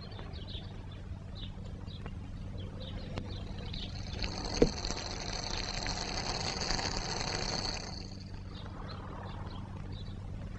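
Powder fizzing in a glass of drink: a hiss that swells about four seconds in and dies away near eight seconds, over a steady low hum. One sharp click comes partway through.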